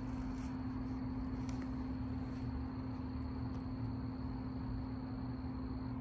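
Goodman PHK036 3-ton packaged heat pump running steadily in cool mode: a constant low hum over the rush of the condenser fan.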